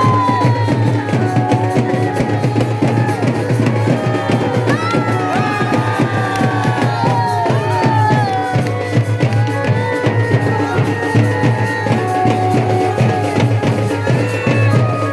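Music with drums beating busily and a high melody sliding up and down in pitch above a steady low drone.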